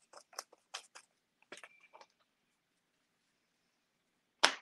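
Foam paint applicator dabbing paint through a plastic stencil onto paper: a quick run of soft taps over the first two seconds, then a pause and one sharp knock near the end.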